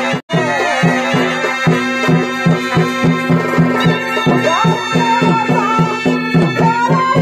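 Purulia chhau dance music: a shehnai-style reed melody wavering over a held drone, driven by drum beats about four to five a second. The sound cuts out for a split second near the start.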